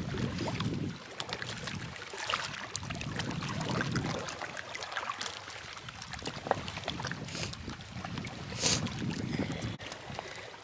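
Choppy lake water lapping and splashing, with wind gusting on the microphone.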